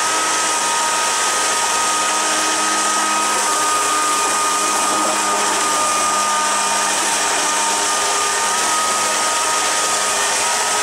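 Electric jet-drive unit for a jet surfboard running steadily at about half throttle: a motor whine with several steady tones over the hissing rush of the water jet churning into a bucket. The jet is digging deep into the water, which puts extra load on the motor and makes it work harder than normal.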